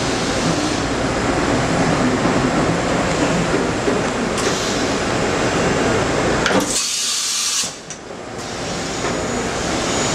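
Steady machine-shop noise: running machinery gives a low hum under a broad hiss. About two-thirds of the way through, a brief sharp high hiss like an air blast cuts in and the low hum briefly drops away.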